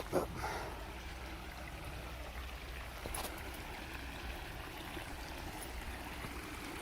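Creek water running steadily, with a brief click about three seconds in.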